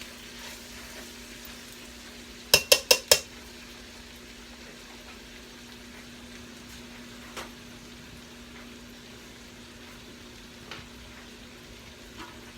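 Chicken frying in a pan with a steady sizzle and a low hum underneath. About two and a half seconds in come four quick ringing metal clinks against the pan, with a couple of faint clicks later.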